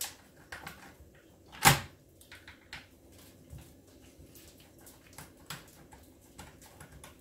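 A screwdriver turning Torx screws out of the plastic handle housing of a Paslode IM350 nail gun: scattered small clicks and scrapes of the tool and plastic, with one sharp knock about a second and a half in.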